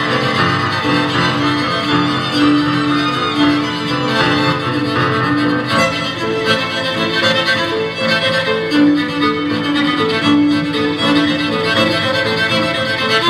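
Live piano trio: violin and cello bowing long held notes over grand piano, with a repeated pulsing figure underneath.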